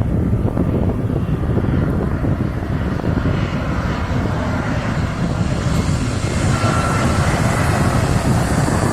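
Citilink airliner's engines and rushing airflow during the descent before landing, a steady loud roar; a higher hiss grows from about halfway through.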